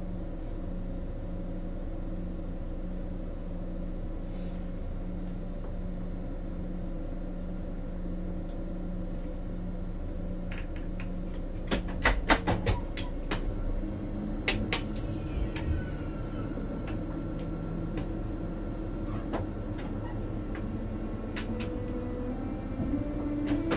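Steady electrical hum of a stationary electric train, heard from inside the cab. About halfway through comes a run of sharp clicks and knocks as a red ÖBB electric multiple unit rolls in on the next track. Right at the end a rising tone begins.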